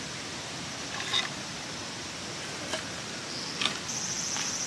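A few faint clicks and knocks as thin wooden boards are laid over a small twig fire in a stone hearth. About three and a half seconds in, a steady high-pitched insect drone starts.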